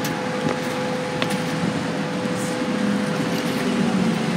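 Strong thunderstorm wind blowing, a steady rush of noise, with a faint steady hum underneath and one short click about a second in.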